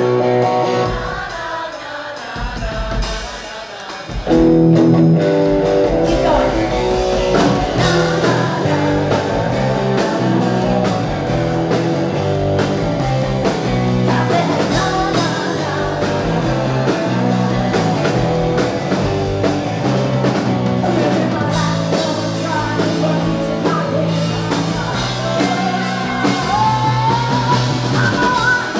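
Live rock band playing: electric guitars, drums and a woman singing lead. The band drops to a quieter, thinner passage and comes back in at full volume about four seconds in.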